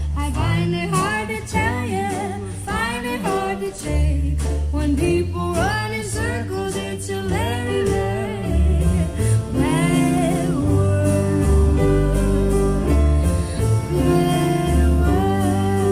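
Fluance Ai60 speakers playing a song: a sung melody that glides between notes over deep, sustained bass notes.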